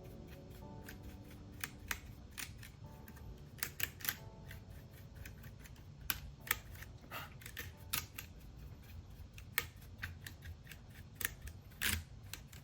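Brush scrubbing the exposed switches and plate of a Keychron K3 mechanical keyboard, its bristles scratching and clicking in quick, irregular strokes.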